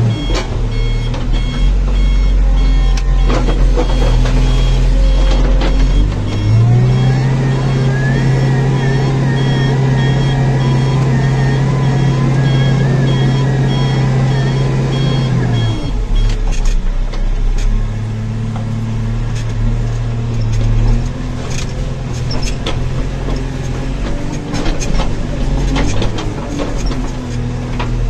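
Backhoe loader's diesel engine running, heard from inside the cab. About a quarter of the way in it speeds up, holds a higher steady note for about nine seconds, then drops back to its lower note. An electronic beeper pulses steadily over the engine through roughly the first half.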